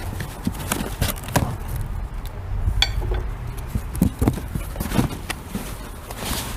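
Scattered knocks, clicks and rustles of metal bench-rest parts and cardboard packaging being handled, over a steady low background hum.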